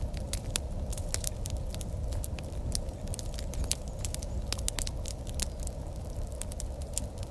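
Wood fire crackling, with frequent irregular sharp pops over a low steady rumble.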